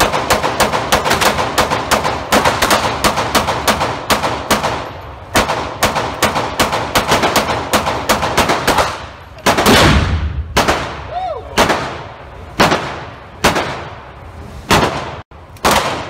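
Rapid handgun shots echoing off the walls of an indoor shooting range, several a second for the first few seconds, then more spaced out. About ten seconds in comes one heavier shot with a deep boom, the loudest of all.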